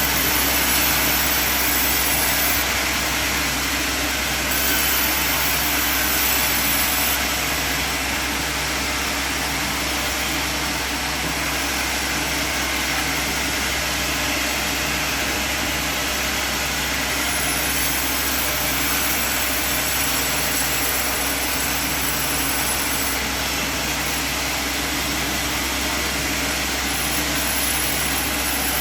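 Band sawmill running steadily, with a high hiss that comes and goes.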